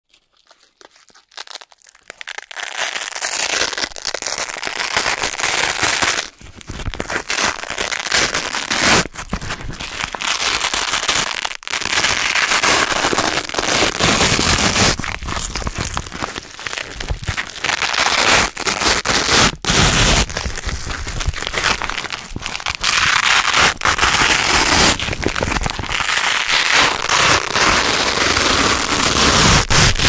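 Hook-and-loop (Velcro) strips being pulled apart, a loud, crunchy crackling rip that runs almost without a break. It starts after a second or two, with a few brief pauses.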